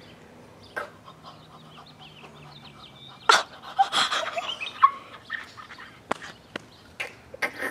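Elephant's-toothpaste foam, hydrogen peroxide decomposing fast over a potassium iodide catalyst, gushing from a 5-litre Erlenmeyer flask and splattering on the ground. Sharp splats come throughout, with a loud gurgling, sputtering burst about three seconds in.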